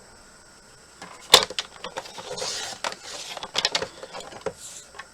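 Paper being cut and handled: after a moment of quiet, a sharp click just over a second in, then a series of small clicks and short paper rustles.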